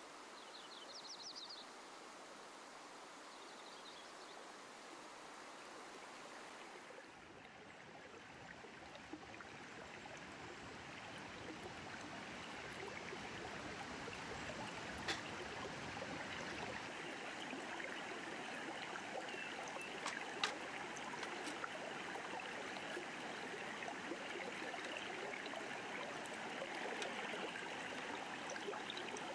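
A river rushing steadily, faint for the first several seconds with a few brief high chirps about a second in, then louder from about seven seconds in. A couple of sharp clicks come later.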